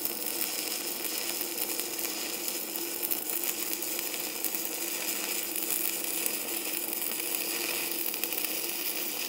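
Stick-welding arc of a 3.2 mm electrode burning at about 141 amps: a steady crackling sizzle with a faint low hum underneath.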